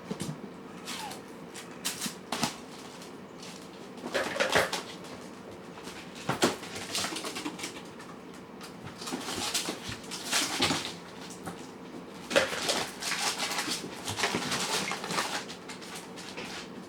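Cats and kittens moving about: irregular bursts of rustling and scratching with a few sharp clicks, several seconds apart.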